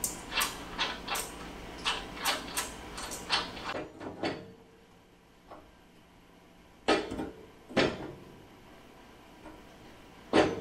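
Ratchet wrench clicking in short strokes as a nut is tightened on a truck's battery disconnect switch, stopping about four seconds in. Two clunks follow a few seconds later.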